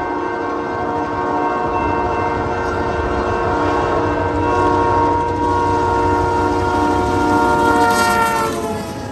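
Horn of Canadian Pacific FP7A diesel locomotive 1401 blowing long blasts for a level crossing as the train approaches. Its pitch drops as the locomotive passes near the end. Under it are diesel engine and wheel rumble.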